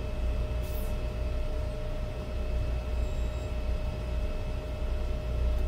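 Steady low machinery hum with a thin steady whine over it: the background drone of a store's air handling or refrigeration.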